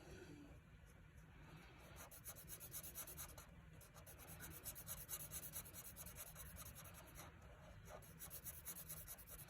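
Faint scratching of a felt marker tip on card stock in quick repeated strokes, colouring in a stamped image.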